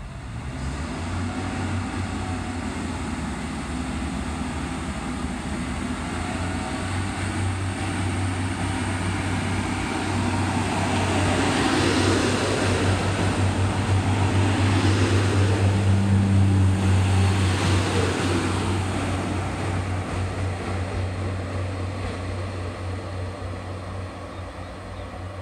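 Northern Class 144 Pacer diesel railbus running through the station, its underfloor diesel engine giving a steady low drone over wheel and rail noise. The sound grows to its loudest about halfway through as the train passes close, then fades.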